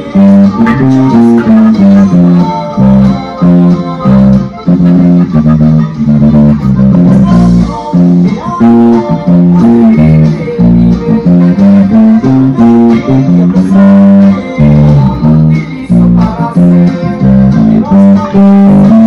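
Four-string electric bass guitar played through a small combo amp: a steady, rhythmic line of plucked notes with no breaks.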